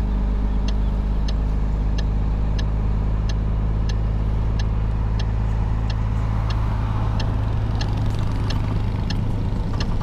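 Heavy truck's diesel engine running steadily as the truck drives along, a deep, even drone. A light ticking repeats about one and a half times a second over it.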